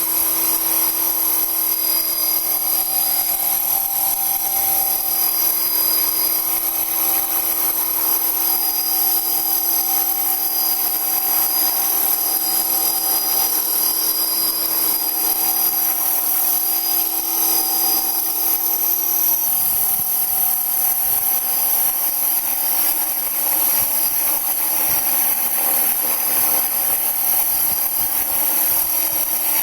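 Motor of a radio-controlled model aircraft running steadily in flight, with a high whine and several steady tones; about two-thirds of the way through one of the lower tones drops away as the motor note changes.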